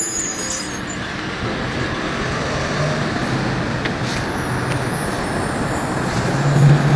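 Steady city traffic noise with a low engine hum that grows louder near the end.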